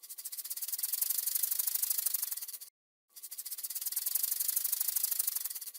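Snake hissing: two bursts of fast-pulsing, high-pitched hiss, each a little under three seconds long, with a short silent gap between them.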